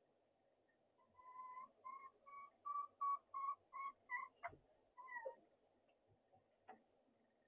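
Hen cackling: a run of about eight short, evenly spaced clucks, then a sharp knock and one longer falling squawk, with another knock near the end. This is the hen's egg-laying cackle, given around the time of laying.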